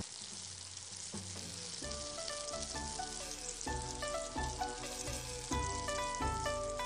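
Hot oil sizzling in a wok after a batch of fried bean-curd-skin rolls is lifted out. Background music with a plucked melody comes in about two seconds in and grows louder over the sizzle.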